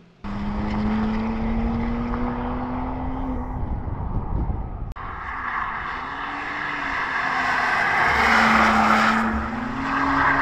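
The twin-turbo inline-six of a BMW M2 G87 running under load, its note rising steadily. After a cut about halfway through, the car drifts: loud tyre noise swells while the engine revs rise and fall.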